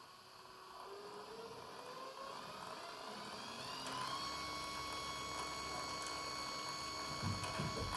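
MY1016Z2 brushed geared DC e-bike motor spinning up: its whine rises in pitch for about four seconds, then holds steady at speed. A couple of low thumps come near the end.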